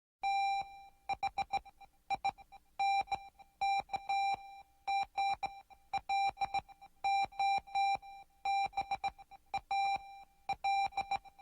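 A single electronic beep tone on one unchanging pitch, keyed on and off in an irregular pattern of short and long beeps.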